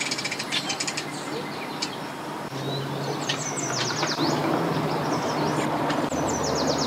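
Birds chirping in quick runs of short descending notes, over a steady low engine hum. A fast, high clicking rattle comes in the first second.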